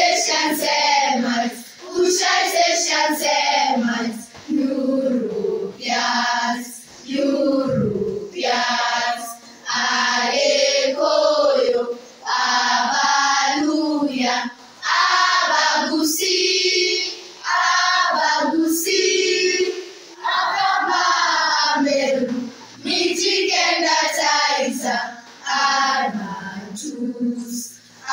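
A group of voices singing together in short phrases with brief breaks between them.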